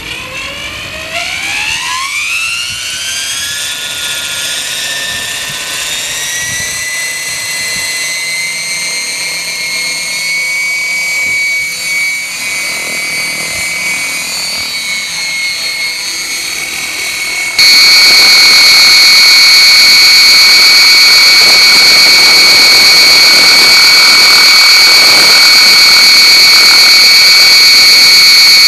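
Radio-controlled model helicopter spooling up: its motor and rotor whine rises steeply in pitch over the first few seconds, then holds steady as it hovers and lifts off. About two-thirds of the way through, the sound jumps suddenly much louder to a steady, close whine, as heard through the microphone of the camera carried on the helicopter.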